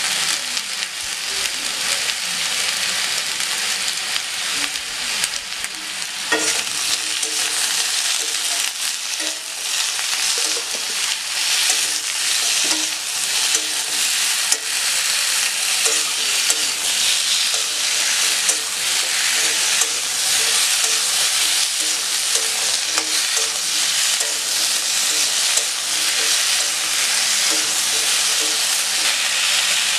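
Sliced potatoes sizzling steadily as they fry in oil in a wok, stirred and turned with a flat metal spatula that scrapes and clicks against the pan throughout.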